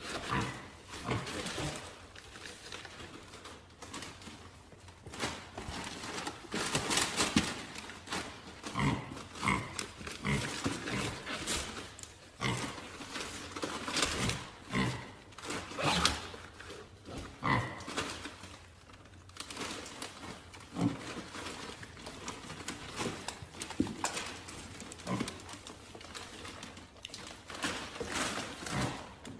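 A small white pet scrabbling and rustling inside a cardboard gift box in many short, irregular bursts, with brief animal noises among the rustling.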